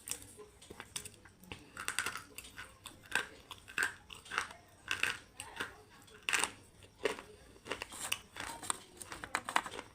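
Slate pencil being bitten and chewed: a run of sharp, brittle crunches, about two a second.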